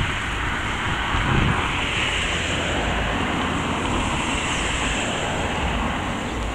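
Steady outdoor noise: wind rumbling on the microphone over an even rushing wash.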